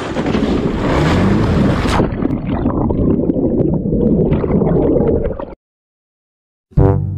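A motorcycle rider's camera plunges into a pond: a loud rushing noise, then about two seconds in the sound turns muffled and gurgling as the camera goes underwater among bubbles. It cuts off suddenly a little past halfway, and brass music starts near the end.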